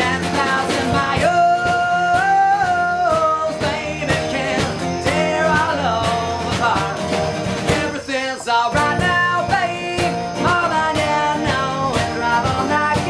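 Live band music: a man singing over strummed acoustic guitars, with an electric guitar.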